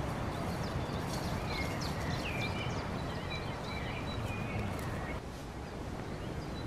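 Woodland ambience: small songbirds chirping and whistling over a steady rushing background, with a thin high steady note joining about halfway. The birdsong thins out and the background drops slightly about five seconds in.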